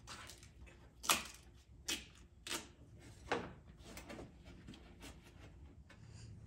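Handling noise from hands-on work: about four sharp clicks and knocks in the first half, with fainter rustling between them.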